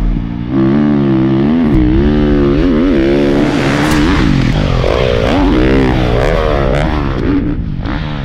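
Dirt bike engine being ridden hard, its pitch rising and falling again and again with the throttle.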